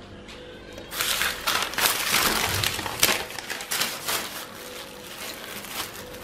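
Paper wrapping rustling and crumpling as it is pulled off a packed takeaway plate, loudest from about a second in; near the end comes softer crinkling of the plastic film over the rice.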